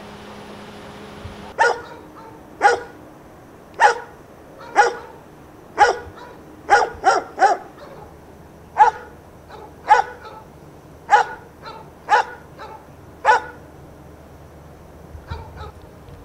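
A dog barking repeatedly, about once a second, with a quick run of three barks midway, fading to a few faint barks near the end.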